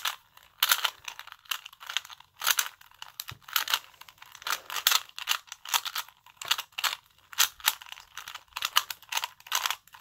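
A 3x3 Rubik's cube being scrambled with rapid twists, its layers clicking and rattling in quick, irregular strokes, several a second.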